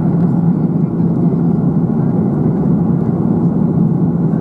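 Steady cabin noise of an Airbus A330-300 in flight, heard inside the cabin: an even roar of engines and airflow with a constant low hum running through it.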